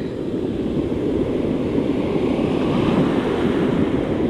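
Ocean surf breaking and washing up the beach, a steady rush, with wind buffeting the microphone.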